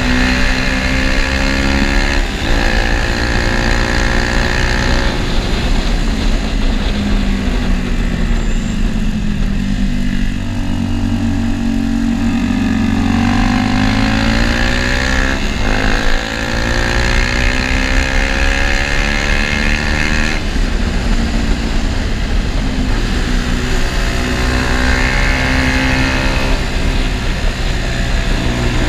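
KTM RC's single-cylinder four-stroke engine and exhaust under way, heard from the rider's seat. The engine note climbs and falls with the throttle, stepping down in pitch at several gear changes.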